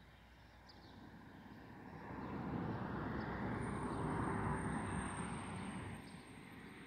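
A vehicle passing by: a rushing noise that builds from about two seconds in, peaks, and fades away near six seconds. A thin, steady high whine runs through the second half.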